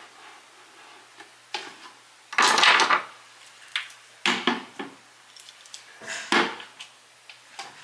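Perfume bottles being set down and shifted about on a shelf: several separate knocks and scrapes, the loudest about two and a half seconds in.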